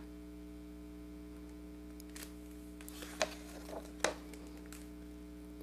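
Low steady hum, with a few faint rustles of a picture book's paper page being turned about two to four seconds in.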